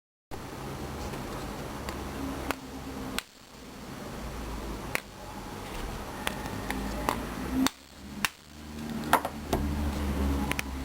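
Sharp clicks and light metallic taps from tools and parts being handled while a microwave oven is taken apart, about nine in all at irregular intervals, over a steady low hum.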